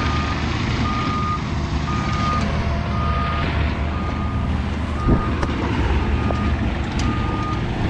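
Backup alarm of a diesel construction machine beeping about once a second, a single steady tone, over the machine's low engine rumble. A knock sounds about five seconds in.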